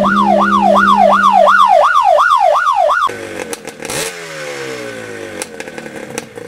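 A siren in a rapid up-and-down yelp, about three sweeps a second, over a steady engine drone; it cuts off suddenly about three seconds in. A motorcycle engine follows, its revs falling, with scattered sharp clicks.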